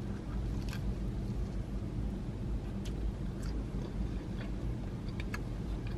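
Quiet biting and chewing of garlic pizza crust, with a few faint clicks spread out over several seconds, over a steady low hum.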